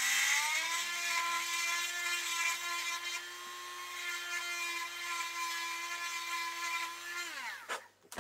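Dremel-type handheld rotary tool spinning up and running at a steady high whine while holes in a plastic case are enlarged, then switched off and winding down about seven seconds in, followed by a click.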